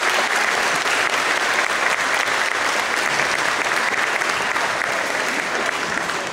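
Audience applauding: dense, steady clapping from many hands, beginning to ease near the end.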